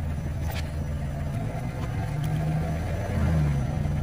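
Car engine running at low revs as the car creeps forward, its pitch rising briefly about three seconds in. A faint click comes about half a second in.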